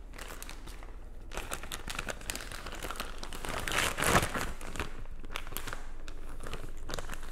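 A clear plastic resealable bag crinkling and rustling as a spool of 3D-printer filament is pushed into it and handled, in a run of crackles with the loudest rustle about four seconds in.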